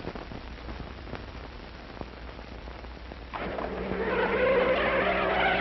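Hiss and crackle of an old film soundtrack, with scattered clicks and pops. About three and a half seconds in, music comes in and swells louder.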